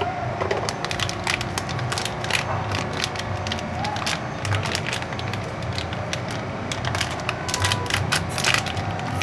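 Plastic wrapping and a small cardboard box crinkling and rustling in the hands as a new generator voltage regulator (AVR) is unpacked: a dense, irregular run of sharp crackles and clicks.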